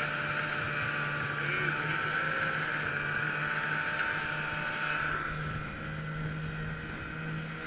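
Snowmobile engine running at a steady cruising speed, with wind on the microphone. About five seconds in, the sound shifts to a duller, windier engine drone.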